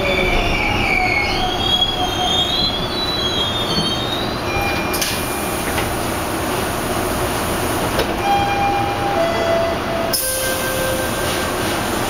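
Bombardier T1 subway car braking into a station, heard from inside the car: its wheels squeal with a high wavering pitch for the first few seconds over the running rumble. After it stops, a three-note falling chime sounds about eight seconds in, and the doors slide open about ten seconds in.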